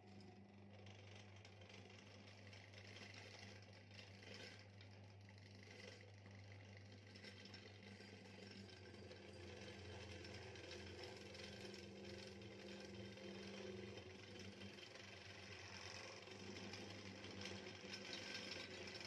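Electric hand drill mounted in a homemade drill press, its motor running with a steady hum as the bit cuts into a metal angle piece. The sound grows gradually louder.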